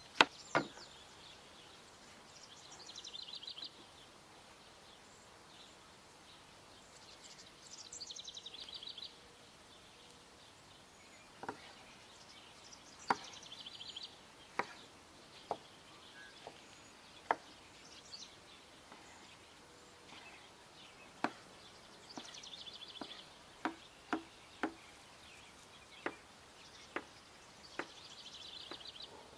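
Irregular sharp chopping knocks, as of a knife on a wooden board, several of them coming in a quick run of three. A songbird sings a short trilled phrase every few seconds.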